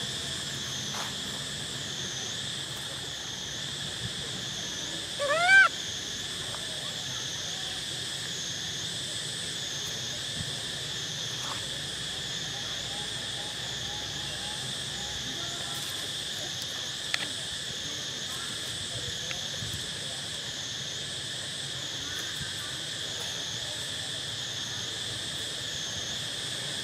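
Cicadas keep up a steady high shrill that pulses about once a second. About five seconds in, one short, loud, rising animal call cuts through it.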